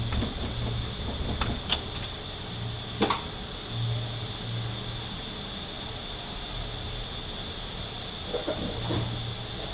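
Occasional light metallic clicks and scrapes as a broken snap ring is worked around in its groove inside an automatic transmission, over a steady hiss and low hum of shop background noise.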